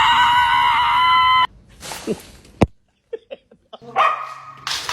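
A dog's long, high-pitched howl, held for about a second and a half and then cut off suddenly; a shorter call follows near the end.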